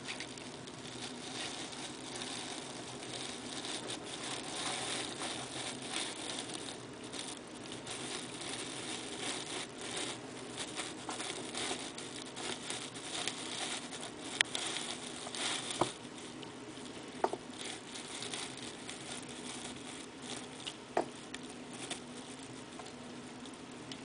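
Model train running along the layout's track: a steady whirring rattle of motor and wheels, with a few sharp clicks in the second half.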